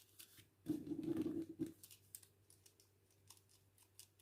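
A ball pen scratching on paper for about a second, then scattered light clicks and taps as the pen is handled.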